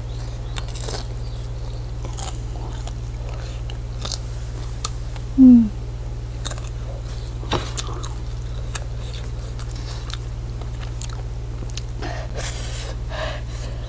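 Close chewing of a fried dumpling: soft wet mouth clicks and smacks over a steady low hum, with a short hummed "mm" about five seconds in. Near the end come a few breathy puffs through the open mouth, the eater reacting to the burn of the 3x spicy noodles.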